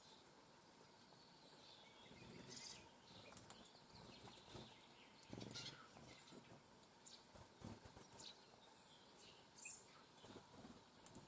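Faint, scattered short chirps of small birds, with a few soft low thumps spread through.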